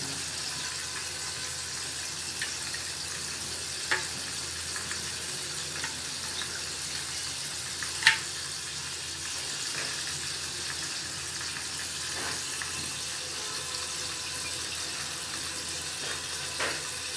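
A steady hiss throughout, with a few short sharp clicks and cracks while crispy fried chicken is pulled apart by hand over a ceramic plate. The loudest click comes about eight seconds in.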